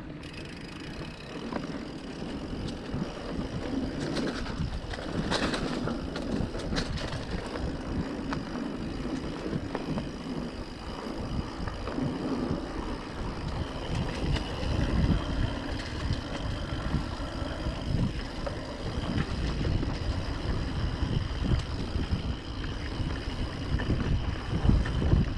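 Mountain bike being ridden over a dirt trail: a continuous uneven rumble of tyres and wind on the microphone, with a few sharp knocks and rattles. The rumble gets louder in the second half.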